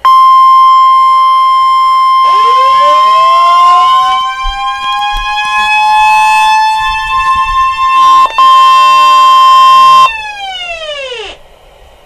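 Midland weather radio sounding a steady, high-pitched alert tone, joined about two seconds in by warning sirens that wind up in rising glides and then hold. The alert tone cuts off about ten seconds in, and the sirens wind down and fade.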